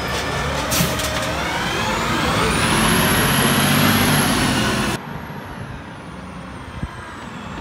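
Autocar ACX garbage truck pulling away and accelerating: a brief hiss of air about a second in, then the diesel engine and driveline whine rising in pitch and getting louder as it goes past. About five seconds in, the sound drops abruptly to the same truck running farther off, quieter, with a high whine slowly falling.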